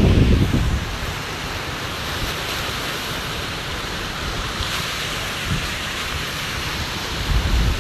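Wind buffeting the microphone, with heavy low gusts in the first second and again near the end over a steady hiss.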